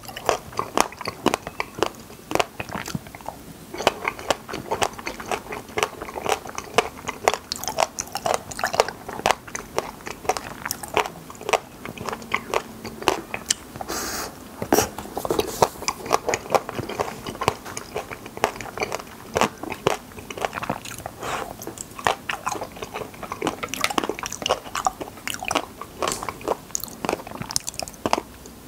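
Close-miked chewing and biting of wild raspberries: a dense, continuous stream of small crunching clicks.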